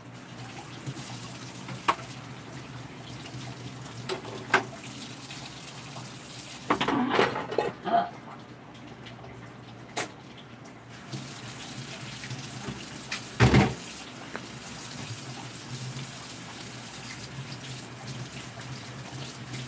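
Tap water running into a stainless-steel kitchen sink while kitchenware is washed, with scattered knocks and clatters of dishes and utensils: a cluster of clatters about seven seconds in and the loudest knock at about thirteen and a half seconds.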